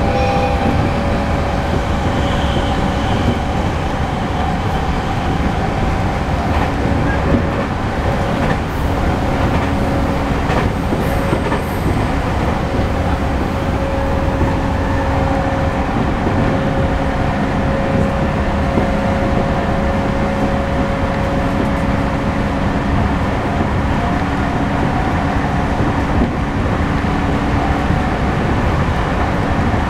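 Running noise heard inside a JR East E231 series suburban electric train (set U-588, with renewed Hitachi IGBT-VVVF equipment) travelling at a steady speed: a continuous rumble of wheels and running gear with a steady held whine.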